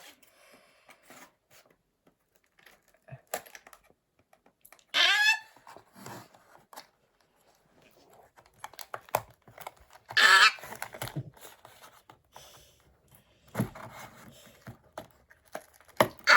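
A Lego mystery minifigure blind bag being torn open and rummaged through: crinkling plastic and small clicks of parts. Two brief, louder pitched sounds come about five and ten seconds in.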